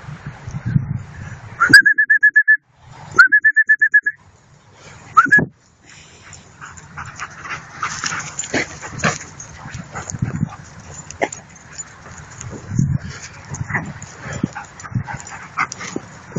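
German shepherd dogs at rough play: three high, drawn-out whining cries in the first few seconds, then a long stretch of low play-growling mixed with scuffling and brushing through dry grass as they wrestle.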